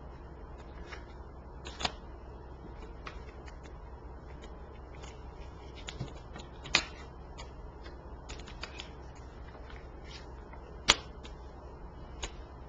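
Tarot cards being handled and laid down on a cloth-covered table: scattered soft card snaps and taps, the sharpest about seven and eleven seconds in, over a low steady hum.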